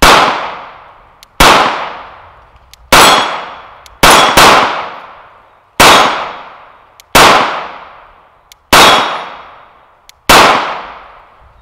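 Glock 19 Gen 5 9mm pistol firing nine shots at a slow, steady pace, about one every second and a half, with a quick pair in the middle. Each shot is a sharp crack with a long fading echo.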